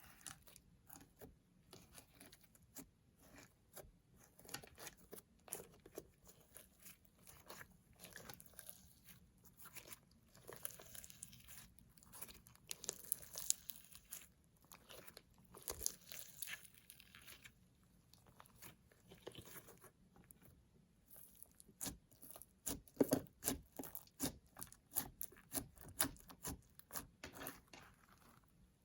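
Slime with makeup mixed in, squished and stretched by hand: irregular sticky crackles and pops, louder in clusters around the middle and in the last few seconds.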